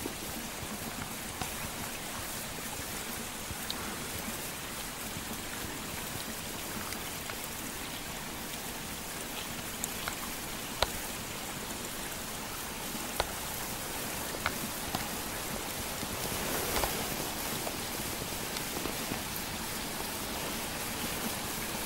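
Falling wet snow pattering steadily on snow-laden conifer branches, an even hiss with a few sharper ticks about halfway through.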